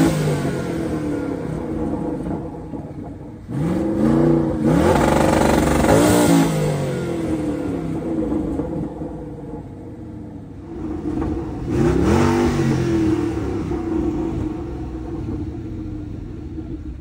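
Twin-turbocharged Ford Mustang engine revved hard three times on its two-step launch limiter. The second rev is held high for about two seconds. Each rev falls away in a descending whine, with the engine idling in between.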